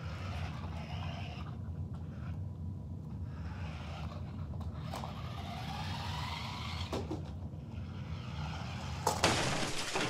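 Electric drive motors of a red Sharper Image Thunder Tumbler remote-control car whining as it drives over carpet, the pitch rising and falling with its speed, over a steady low hum. A louder burst of noise comes near the end.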